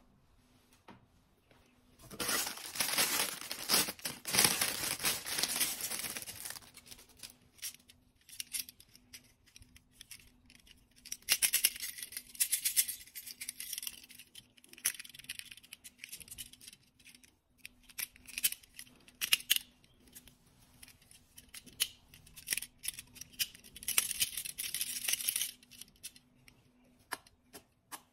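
Plastic packaging crinkling and tearing in three stretches as toy handcuffs are unwrapped and handled, with light clicks and rattles of the toy handcuffs between them.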